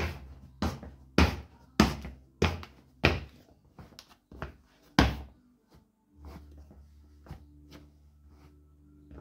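Footsteps in loose Nike Shox trainers on a laminate floor: about ten heavy clacks, roughly two a second, as the loose shoes slap down with each step. About six seconds in the steps stop, leaving softer scuffs and clicks over a faint steady hum.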